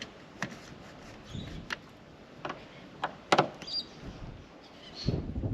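Scattered clicks and taps of a Phillips head screwdriver and screws being worked on a car's inside door trim, the sharpest tap about three seconds in, with handling rustle near the end.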